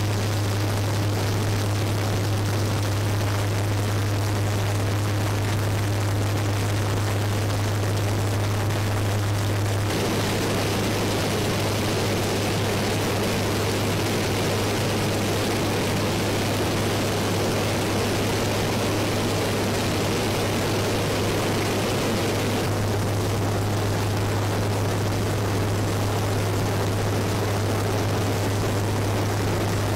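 V-22 Osprey tiltrotor's turboshaft engines and proprotors running: a steady, loud drone with a strong low hum. The noise changes abruptly about ten seconds in, with more mid-range rush, and changes back a little before the end.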